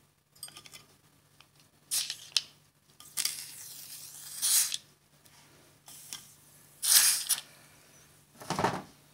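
Metal tongs and small brazed wire pieces clinking and scraping as they are put into a plastic bowl of dilute sulfuric-acid pickle: a handful of separate clinks and scrapes, the loudest about seven seconds in.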